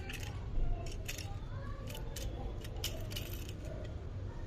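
Irregular sharp clicks and light rattling of small plastic toys and packaging being handled, over a low steady hum.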